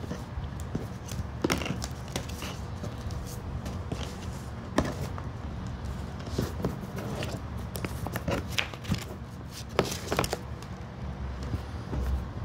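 Paper and card of an album package being handled: scattered short rustles, taps and clicks over a steady low hum.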